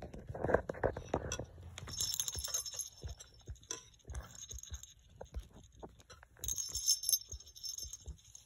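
Small metal jingle bells on a plush toy dog's Christmas headband jingling in two short bursts, about two seconds in and again a few seconds later, among light taps and rustles of the toy being handled.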